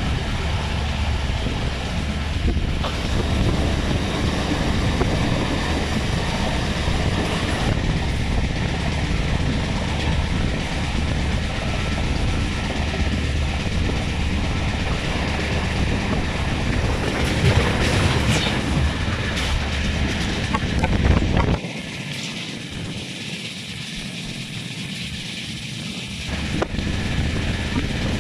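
Running noise of a moving passenger train heard at an open carriage window, a steady rumble of wheels on rails with wind on the microphone. The noise drops suddenly for about five seconds past the middle, then comes back.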